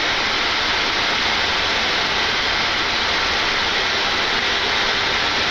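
Steady flight-deck noise of a Boeing 747-8 freighter taxiing after landing: an even, constant rush with no distinct events.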